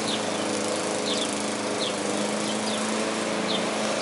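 Petrol lawn mower engine running steadily, a constant hum, with short high chirps repeating about every half second above it.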